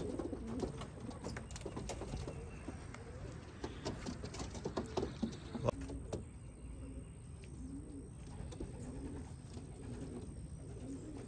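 Domestic racing pigeons cooing, a series of short, low coos that come more often in the second half, with scattered light clicks and taps in the first half.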